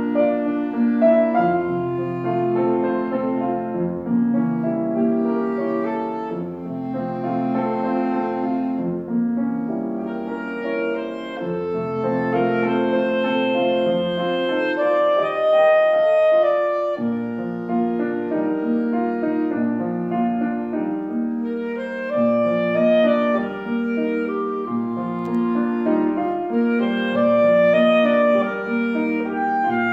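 Clarinet playing a melody of long held notes over a piano accompaniment.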